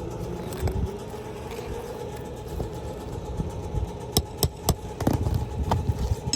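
A steady, engine-like drone, with three sharp knocks in quick succession about four seconds in and a few fainter knocks around them, typical of hand work on a shingle roof.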